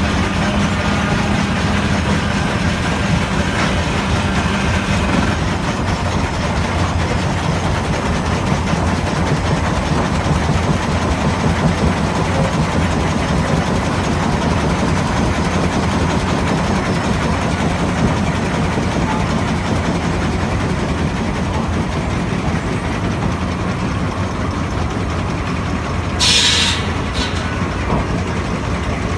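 Stationary steam engine running steadily, driving the sawmill's belt pulley and flywheel, a continuous low mechanical hum. Near the end comes a brief hiss of steam.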